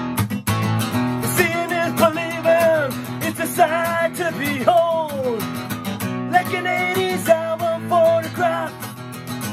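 Acoustic guitar strummed steadily while a man sings over it. His voice comes in about a second and a half in, drops out briefly around six seconds, and comes back.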